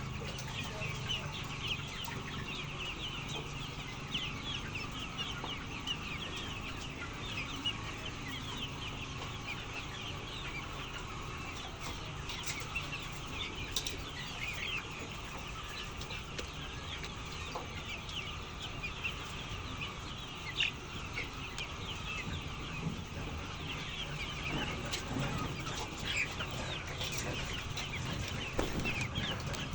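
A flock of chickens clucking and calling, with many short, overlapping high-pitched calls throughout.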